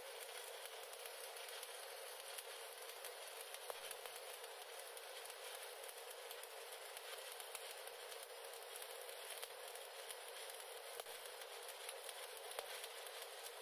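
Stick (shielded metal arc) welding arc burning steadily, a thin, even crackling sizzle with no pauses.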